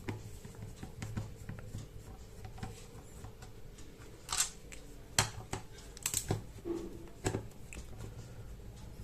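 Screwdriver taking out the screws of an extension board's casing, with scattered clicks and scrapes, most of them between about four and seven and a half seconds in.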